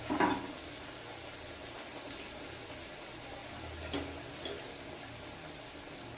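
Hot oil sizzling steadily as slices of raw banana fry for chips, with a few brief knocks about a second in and near the middle.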